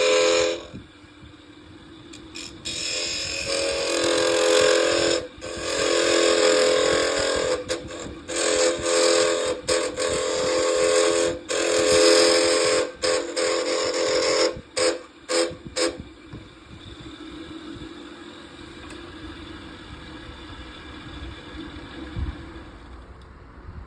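Wood lathe running while a turning tool works the spinning wooden handle in repeated passes, a loud hissing cut with a steady hum that stops and starts sharply several times. From about 16 seconds in, only the quieter hum of the lathe spinning is left.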